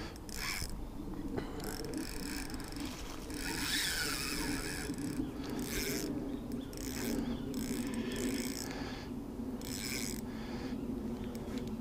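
A fixed-spool spinning reel being cranked to retrieve a small lure, its gears whirring in short, uneven spurts.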